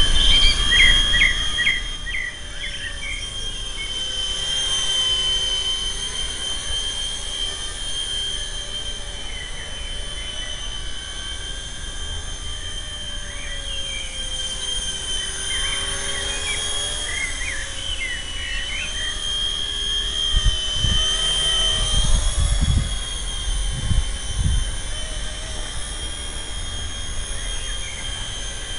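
Carson EC145 fixed-pitch micro RC helicopter in flight, its small electric motors giving a steady high whine that dips and rises a little with the throttle. A few low rumbles, like gusts or knocks on the microphone, come about two-thirds of the way through.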